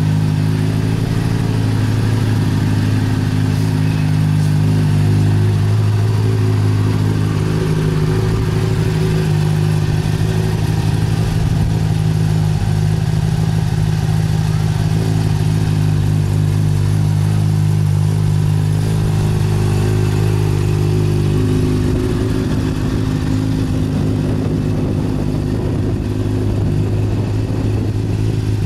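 600cc inline-four sportbike engine idling steadily after warm-up, with no revving.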